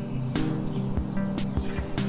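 Soft background music: held low notes with light plucked notes over them.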